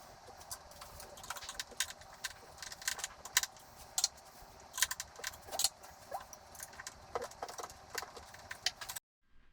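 Small hard parts being handled: irregular clicks, clinks and rattles over a faint steady hum, cutting off abruptly about nine seconds in.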